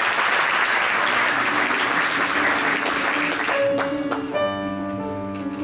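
Audience applause, dying away about three and a half seconds in as a piano begins the song's introduction with sustained notes.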